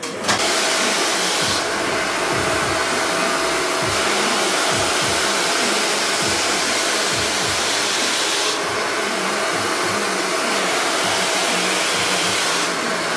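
Handheld hair blow dryer running steadily while wet hair is brushed straight under it with a paddle brush.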